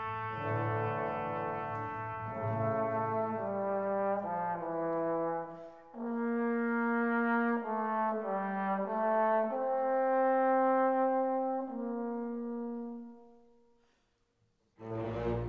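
Background music of slow, held notes moving through changing chords, fading out near the end; after a moment of near silence, a new piece of music starts suddenly just before the end.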